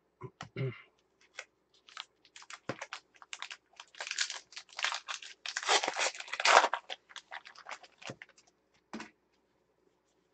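Foil wrapper of a Gypsy Queen baseball card pack being torn open and crinkled, a quick run of crackles that is thickest in the middle and stops about a second before the end.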